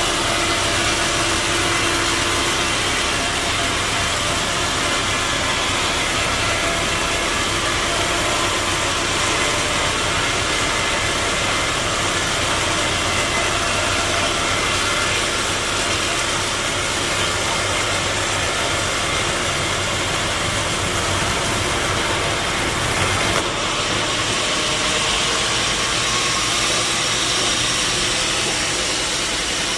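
Sawmill machinery running steadily: a loud mechanical drone with a low hum and a hiss, shifting abruptly about three-quarters of the way through.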